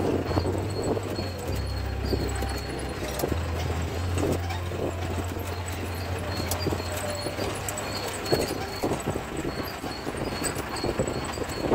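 CJ 550 jeep driving over a rough dirt track: a steady low engine hum under irregular clattering and knocking of the body and loose fittings.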